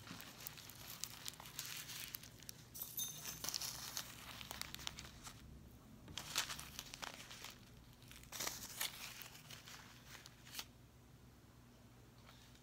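Packaging being crinkled and torn open by hand, in several bursts of rustling and crinkling.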